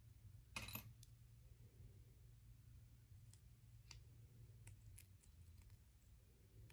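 Faint metallic clicks and tinkles of a fine necklace chain being worked between fingertips to loosen a knot, with one short rattle just under a second in and scattered single ticks later, over a low steady hum.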